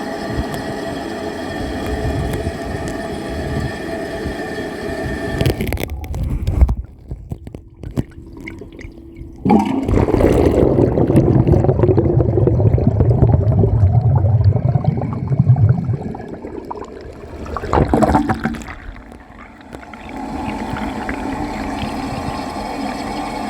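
Toilet flush heard from underwater in the bowl: a sudden loud rush of water about ten seconds in lasts some six seconds, followed by a shorter second gurgling surge. A steady hum runs before and after the flush.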